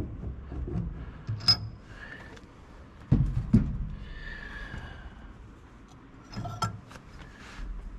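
Brake master cylinder being worked off the power brake booster by hand, a step in checking the booster pushrod's clearance. Small metal clicks and scrapes, with two louder clunks about three seconds in and another sharp knock near the end.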